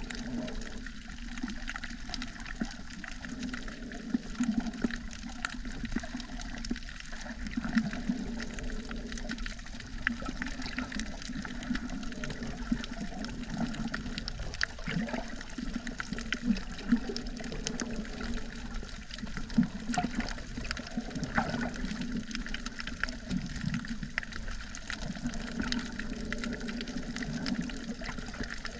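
Muffled water noise as heard underwater, churning and sloshing without a break, with many small clicks and ticks scattered through it.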